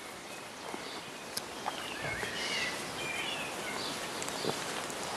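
Outdoor garden ambience with a small bird singing a few short, quick warbling phrases through the middle, over a steady background hiss.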